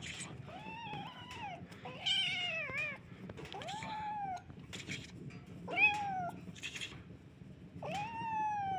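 Small white cat meowing repeatedly while it wrestles with and bites at a hand: about five drawn-out, complaining meows, each rising then falling in pitch, the last still going at the end.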